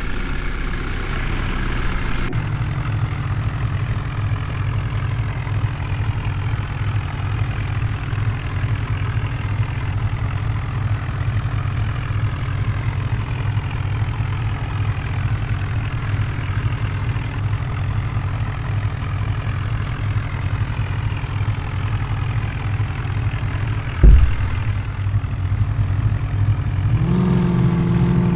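Heavy diesel engine running steadily. Near the end there is a single loud thump, and then the engine note rises and wavers as it is revved.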